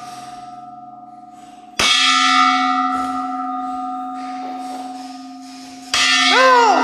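A brass dome bell struck hard with a wooden mallet. Two loud strokes, about two seconds in and near the end, each followed by a long, steady ringing, over the fading ring of an earlier stroke. A short voice sounds just after the second stroke.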